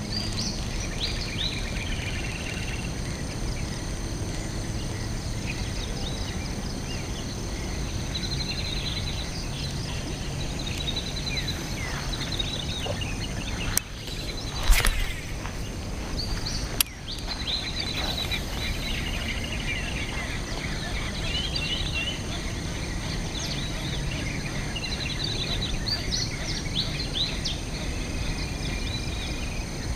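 Small birds chirping and whistling again and again over a steady outdoor background noise. About halfway through there is a brief loud rustle, and a sharp click follows a couple of seconds later, as the rod and baitcasting reel are handled.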